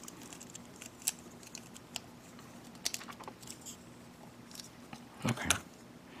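Small snap-fit plastic model parts being handled and fitted together: scattered light clicks and taps about once a second, with a louder brief handling sound about five seconds in.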